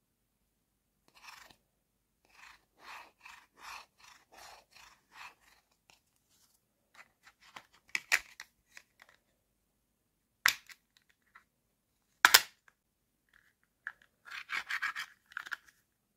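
Hard plastic toy food pieces being handled: a run of short scratchy rubs, about three a second, then sharp plastic clacks as the toy bread slices and fillings are stacked into a sandwich. The two loudest clacks come past the middle, and a quick cluster of rubbing and clicking follows near the end.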